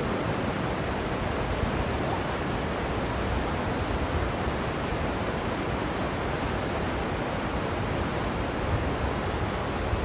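A shallow river running over rocks: a steady rushing with a low rumble underneath.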